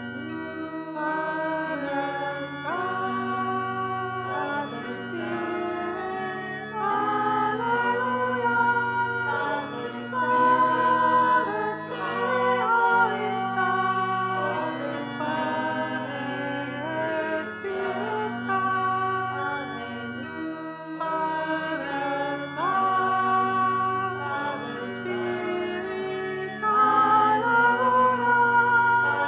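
Music: a small choir singing slow, sustained chords in harmony, the voices moving together from one held chord to the next.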